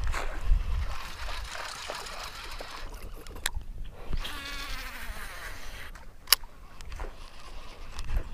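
Fishing reel spool whirring as a lure is cast, a short buzzing whine a little over four seconds in, with a sharp click shortly before it and another about two seconds after.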